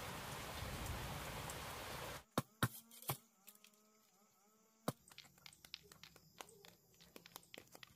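Steady rain hissing, cut off abruptly about two seconds in. A quieter stretch follows with a few sharp knocks and scattered light clicks.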